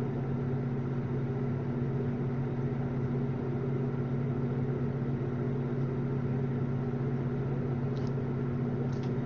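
Steady low hum, constant in pitch and level, with two faint soft ticks near the end.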